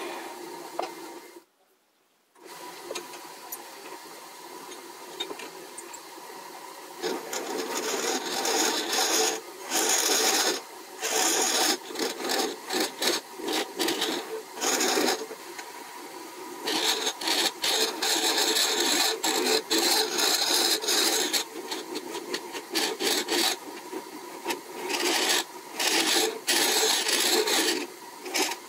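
Wood lathe spinning a magnolia blank while a bent hollowing tool scrapes out the inside of a small hollow form, with a steady faint hum underneath. The sound drops out briefly about two seconds in. From about seven seconds on, the scraping comes in rapid, loud on-and-off bursts as the tool is worked in and out of the opening.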